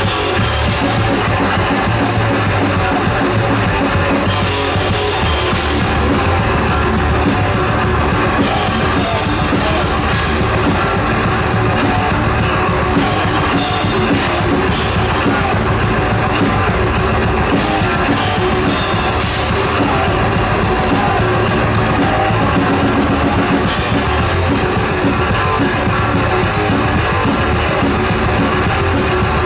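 Live thrash metal band playing an instrumental passage, loud and steady: distorted electric guitars and bass over a drum kit, with cymbal wash that comes and goes every few seconds.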